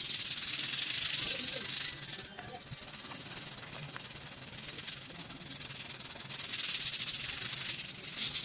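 Sandpaper rubbed by hand back and forth along a rusty steel knife blade, a scratchy hiss as the rust is sanded off. The strokes are louder for the first couple of seconds and again about two-thirds of the way through, lighter in between.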